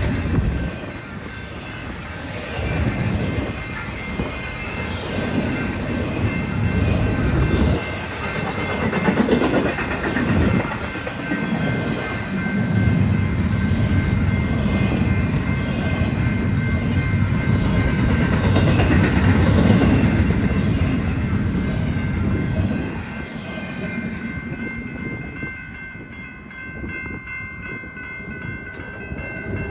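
Freight train rolling past: a heavy rumble and the clatter of wheels on the rail, with faint steady high tones above it. The rumble drops away about 23 seconds in.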